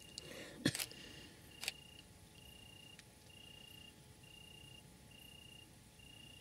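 A cricket chirping steadily, one high, even chirp about every second. About a second in there is a short rustle with sharp knocks, and another knock a second later; these are the loudest sounds.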